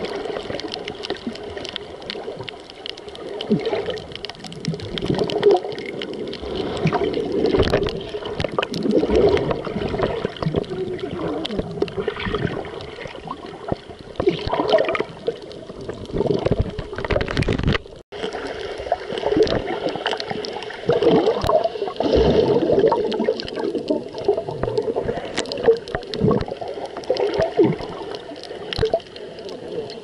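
Water heard underwater through an action camera's waterproof housing: muffled gurgling and sloshing with frequent small knocks, and a brief drop-out about 18 seconds in.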